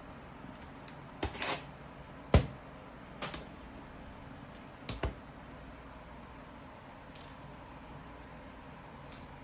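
A few scattered clicks and knocks, the loudest about two and a half seconds in, over a steady low hum.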